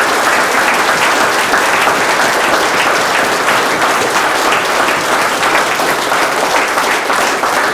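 A small audience applauding steadily, many hands clapping at once.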